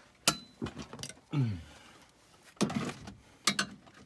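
Scattered clicks and light metallic taps from inside a car door cavity as loose pop-rivet pieces are fished out by hand. There is a sharp click near the start, a short low sound falling in pitch about a second and a half in, and a denser run of small clicks in the last second and a half.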